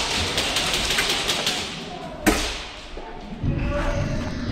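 Thuds and a sharp crack a little over two seconds in as an airsoft player moves fast between barricades, with heavier thudding near the end, over background music.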